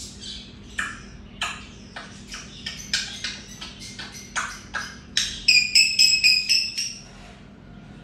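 African grey parrot calling: a string of short, sharp squawks and clicks, one or two a second, then a fast run of loud, high whistled notes lasting about two seconds.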